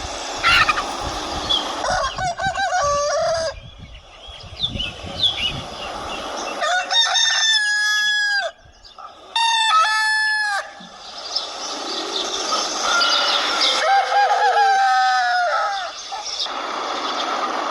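Desi roosters crowing, about four separate crows, each a long held call that falls away at the end.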